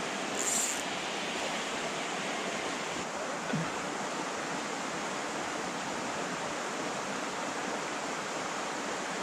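Steady rushing of flowing creek water, with a short high hiss about half a second in and a faint knock a few seconds later.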